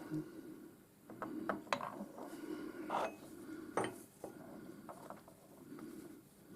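Metal tools and parts clinking and knocking as they are handled at a workbench, with a handful of separate clicks, the loudest about three and four seconds in, over a faint steady hum.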